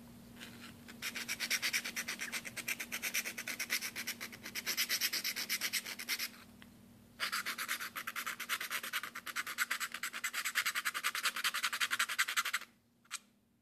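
A small round file rasping back and forth in a drilled hole in a metal backing plate, shaping the hole, with quick even strokes. It stops for about a second around six seconds in, then carries on, and a single click follows near the end.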